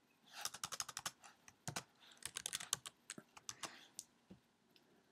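Typing on a computer keyboard: a quick run of faint key clicks starting about half a second in and thinning out about four seconds in.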